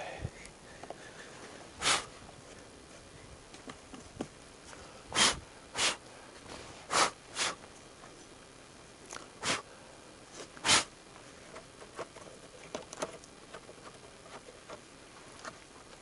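A person sniffling: about seven short sniffs at uneven intervals, with a few faint small clicks near the end.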